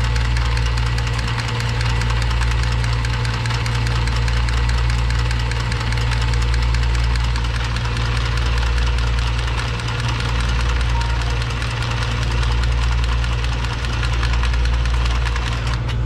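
Milwaukee M12 cordless copper tubing cutter running steadily as it cuts through 1-inch copper pipe, stopping right at the end, over a steady low hum.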